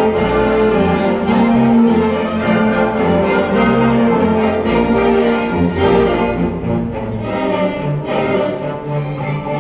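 Live orchestra of strings and winds playing Christmas concert music, with sustained shifting chords.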